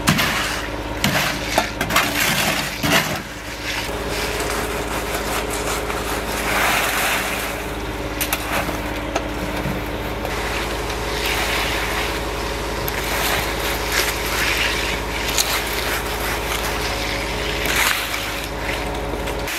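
Wet, gravelly concrete being dumped from a wheelbarrow and worked by hand: shovels and rakes scraping and crunching through the mix, with many short scrapes and knocks over a steady low hum.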